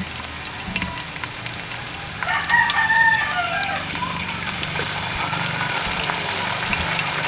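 A rooster crows once about two seconds in, a pitched call lasting over a second, over the steady sizzle of vegetables frying in a wok.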